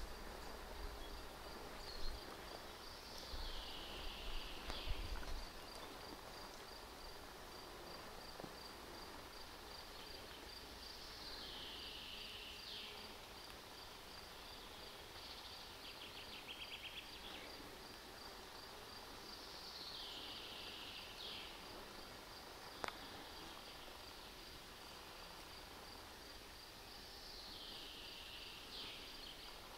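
Forest ambience: a songbird repeats the same short phrase, falling in pitch, about every eight seconds, over an insect's steady, evenly pulsed high chirping.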